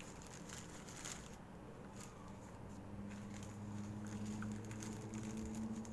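Faint handling sounds as a mechanical keyboard is lifted out of its packaging: light rustling with a few soft clicks and knocks. A faint steady low hum comes in about two seconds in.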